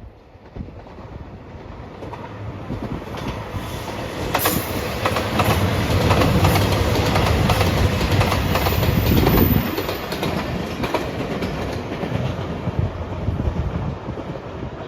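A train passing at a level crossing, its wheels clacking over the rail joints. The sound builds over the first few seconds, is loudest with a deep rumble through the middle, then eases to a steady rattle.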